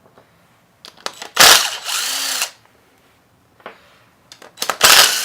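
Handheld power driver spinning out engine case cover bolts in two bursts of about a second each, with a few small clicks of bolts and socket between.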